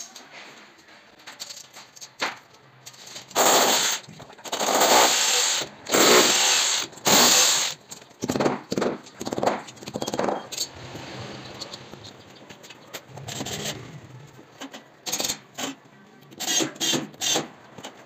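A drill boring holes into a tiled wall in about four bursts of a second each, followed by quick sharp knocks of a hammer tapping plastic wall plugs into the holes to hang a combi boiler's mounting bracket.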